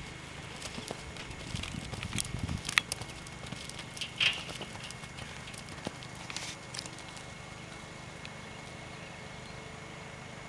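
Hoofbeats of a horse landing from a jump and cantering on a sand arena: irregular thuds and sharp clicks that die away after about seven seconds as the horse moves off.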